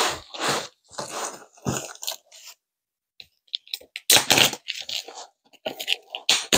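Cardboard box being pulled open and handled: irregular crunching, tearing and scraping of cardboard in bursts, with a short pause about halfway through.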